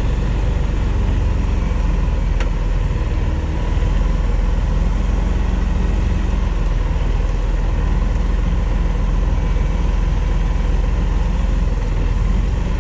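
Truck engine running steadily as the tractor unit drives slowly and turns, heard from inside the cab as a low drone. A single light click about two and a half seconds in.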